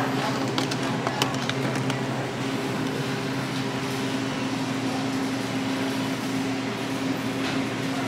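Steady mechanical hum holding several low tones, with a few light clicks about a second in.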